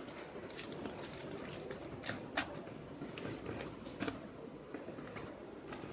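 Hands handling a laptop's packaging during unboxing: a soft, steady rustling with scattered light clicks and ticks, the sharpest a couple of seconds in.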